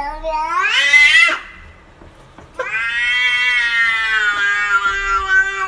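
Domestic cat meowing in two long, drawn-out, word-like calls. The first rises in pitch and breaks off about a second and a half in. The second starts after a short pause and is held long and nearly level, dipping at its end.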